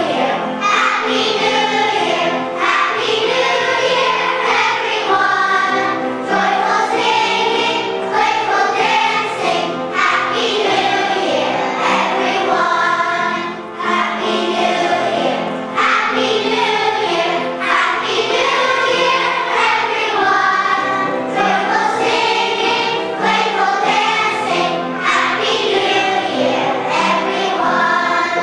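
Children's choir singing a song together in phrases, over low sustained accompaniment notes.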